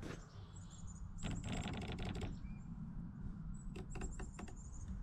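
Small mechanical clicks from handling the air rifle and its scope: a quick run of clicks lasting about a second, then a few separate clicks near the end, over a steady low rumble.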